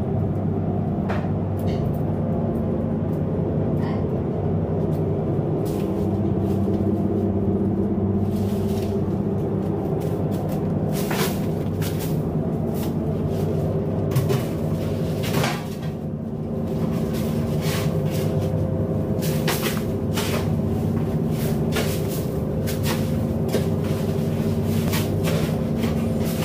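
Steady drone of the trawler's inboard diesel engine heard inside the fish hold. Over it come repeated knocks and scrapes of crushed ice being tipped from a plastic basket and shovelled onto fish in the hold compartments, more frequent in the second half.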